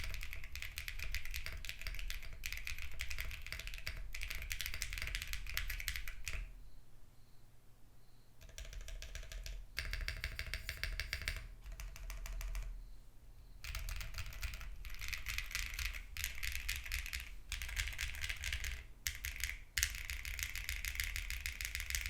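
Steady typing on a custom mechanical keyboard: a Vertex Arc60 with a polypropylene plate and no foam, fitted with lubed Sarokeys BCP linear switches and Shenpo keycaps. The keystrokes are clean, sharp, high-pitched clacks that come in dense runs, with two short pauses, one about a third of the way in and one just past halfway.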